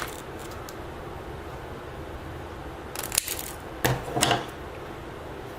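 Small clicks and handling noise from the twisted-pair wires of an Ethernet cable and a plastic RJ45 plug being handled, with two short clusters of sharp clicks about three and four seconds in.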